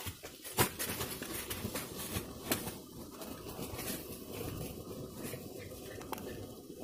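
Rustling and crackling in dry leaf litter and undergrowth, with a few sharp snaps or knocks, the loudest about half a second in.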